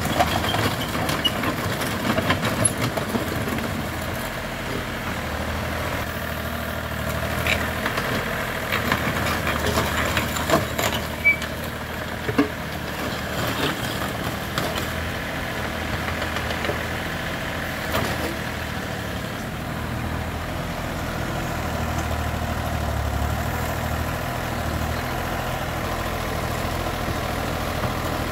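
Komatsu mini excavator's diesel engine running steadily as the machine tracks and swings its boom, with a few sharp clanks in the first half.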